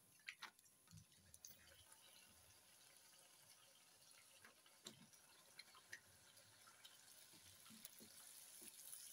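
Faint sizzling of golgappa puris deep-frying in hot oil, with scattered small crackles.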